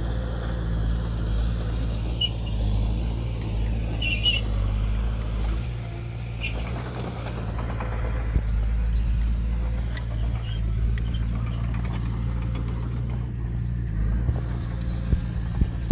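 Diesel engine of heavy earthmoving equipment running steadily at an even pitch, with a few light metallic clanks and clicks over it.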